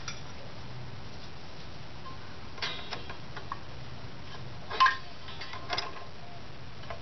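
A few light metal clicks and clinks as steel parking brake parts are fitted between the rear brake shoes on a drum-brake backing plate, the loudest clink about five seconds in, over a faint low hum.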